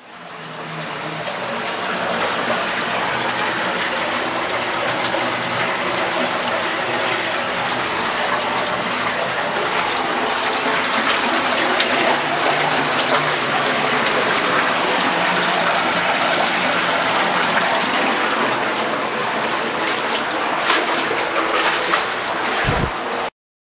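Steady rush of flowing water from a stream in the cave, with a few faint clicks over it. It swells over the first couple of seconds and cuts off suddenly near the end.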